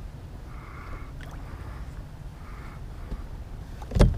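Low steady rumble of wind and water against a kayak, with faint small clicks and one loud knock near the end as the rod and landing net are handled aboard.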